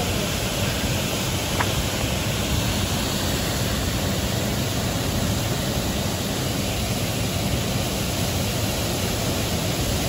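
Water pouring over a low river weir, a steady, even rushing hiss.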